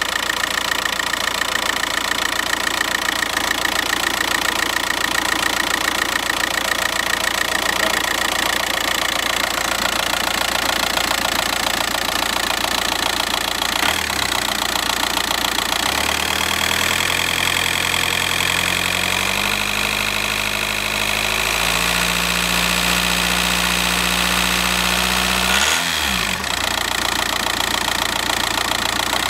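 Volkswagen Passat TDI diesel engine running at idle, then from about halfway its speed is raised and lowered in steps several times, with a quick rev up and back down near the end.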